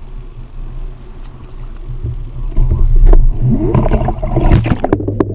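Sea water splashing and bubbling at the surface, louder and busier from about two and a half seconds in as the camera dips through the waterline, over a low steady rumble.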